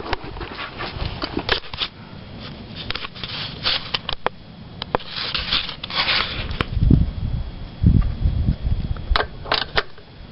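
A 12 mm wrench turning the chain adjuster bolt on a motorcycle swingarm: scattered metal clicks and short scrapes, with a few low thumps about two-thirds of the way in.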